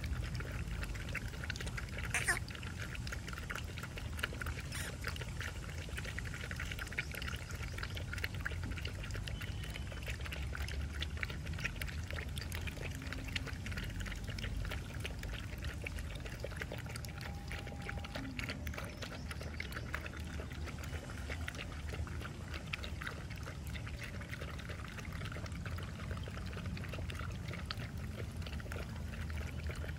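Several puppies lapping milk from a plastic bowl: a steady, dense run of wet lapping clicks from their tongues, with one sharper knock about two seconds in.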